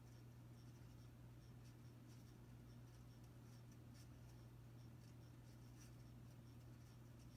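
Hunter Low Profile V hugger ceiling fan running, with a faint steady motor hum and light scratchy ticking from its worn bearings.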